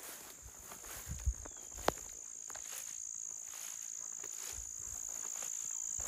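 Steady high-pitched drone of insects, growing a little louder, with scattered faint rustles and one sharp click about two seconds in.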